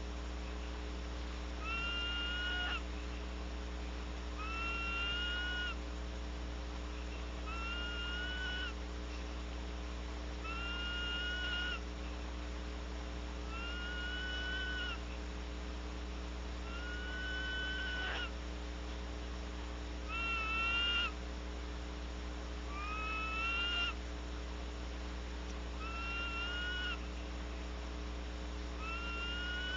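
Female barn owl calling over and over with a rasping screech, each call about a second long and coming roughly every three seconds. A steady low electrical hum runs underneath.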